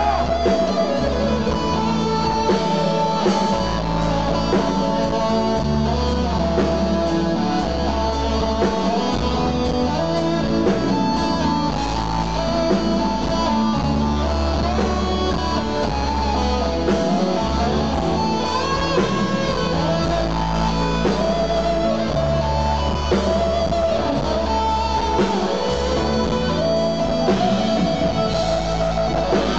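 Live band music with an instrumental electric guitar lead on a Stratocaster-style guitar, over bass and keyboards; the guitar bends and holds its notes, with no singing.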